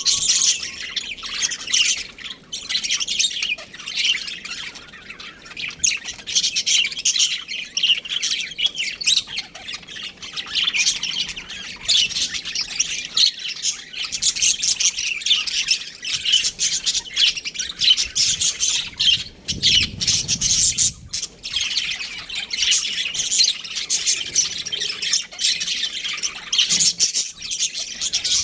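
Budgerigars chirping and squawking in a rapid, unbroken chatter of high calls.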